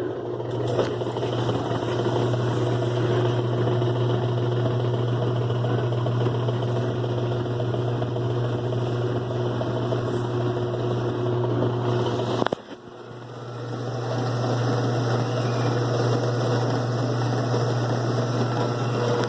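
Kenmore 70 Series direct-drive washing machine running on slow spin, a steady loud hum with a rough, noisy rattle over it, the noise the technician attributes to a water pump that is dirty inside. About twelve seconds in the sound cuts out suddenly, then builds back up.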